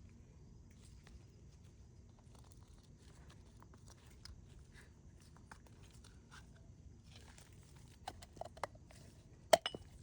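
Parts of a GE washer transmission being handled: faint rustling and small clicks, then a few sharp knocks near the end as pieces are set down or knocked together.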